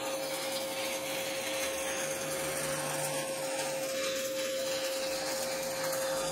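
Stick (MMA) welding arc from a Multipro 160A inverter welder burning a 3.2 mm electrode at 120 amps: a steady hiss with a constant tone under it. The arc runs stable.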